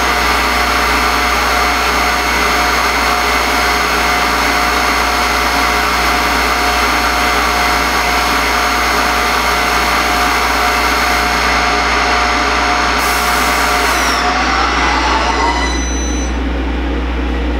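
CNC milling machine spindle running steadily with its end mill stalled in the workpiece, a whine of several steady tones over a hiss: the Z-axis drive has died, so the tool never retracted. Near the end the tones shift in pitch and the hiss drops away as the machine winds down.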